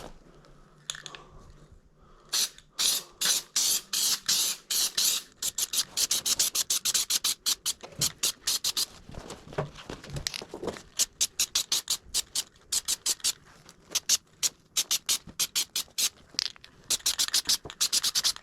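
Aerosol can of spray headliner adhesive spraying in many short hissing bursts in quick succession, with longer sprays about four seconds in and near the end.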